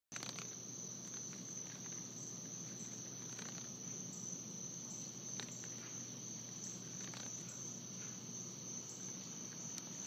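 A cricket trilling: one steady, unbroken high-pitched note.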